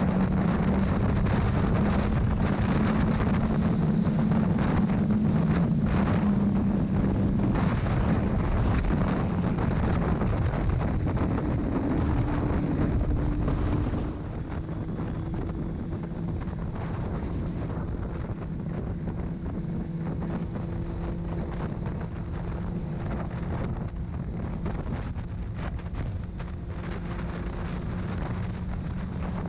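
Onboard sound of a Honda CBR600RR's inline-four engine running steadily at cruising speed, largely buried under wind rushing over the camera microphone. About halfway through the sound drops in level and the engine note shifts.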